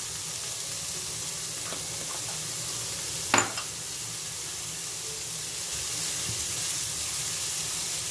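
Stir-fried vegetables sizzling steadily in a frying pan over high heat. A sharp knock about three seconds in, with a fainter one shortly before.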